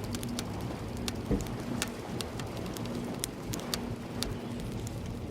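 Rain falling, with scattered sharp ticks of drops striking a hard surface at irregular intervals, a few each second.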